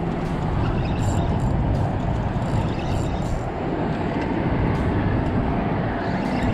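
Steady low rumble with a few light clicks.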